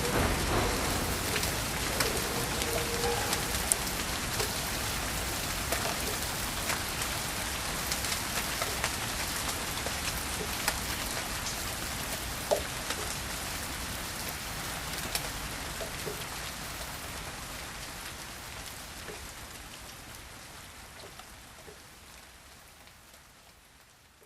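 Steady rain falling, with scattered sharp drop ticks, fading slowly out to near silence by the end.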